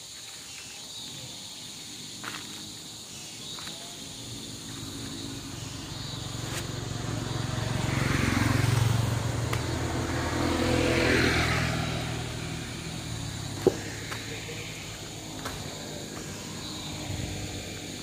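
A motor vehicle passes on the road: its engine swells over several seconds to a peak and then fades away. A single sharp click comes near the end.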